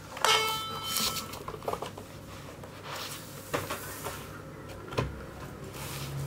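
A few scattered clicks and knocks of objects being handled, the first followed by a short metallic ringing clink.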